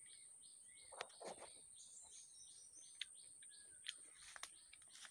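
Faint outdoor ambience: a high chirp repeating evenly about three times a second over a steady high-pitched drone, with a few short bird calls. There are some soft mouth or handling sounds about a second in.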